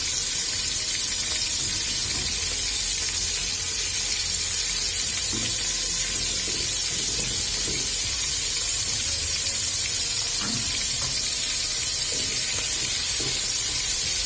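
Cubes of meat searing in hot ghee and butter in a pot: a steady sizzle, with a few faint knocks, as the meat is browned to seal it.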